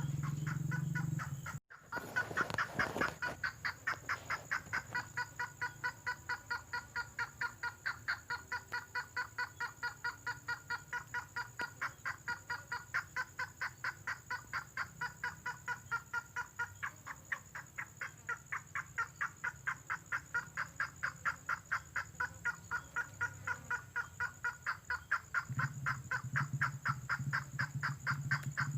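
Red tengkoah bird call on a lure recording: a rapid, unbroken series of short notes, about four a second. A low hum runs underneath near the start and again near the end.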